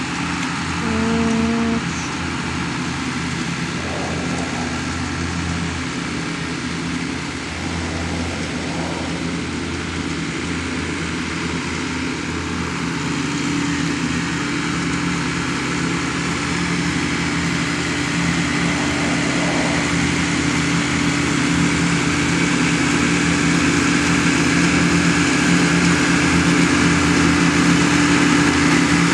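Large Jacobsen mower's engine running steadily while mowing, growing gradually louder toward the end. A brief steady low tone sounds about a second in.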